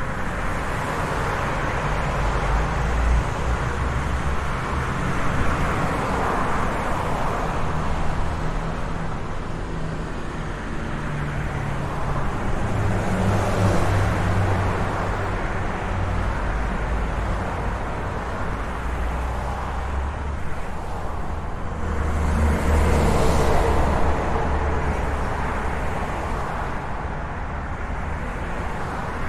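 Steady road traffic: a continuous hiss of tyres and engine rumble, with vehicles passing close by and swelling in loudness, the loudest pass about two-thirds of the way through.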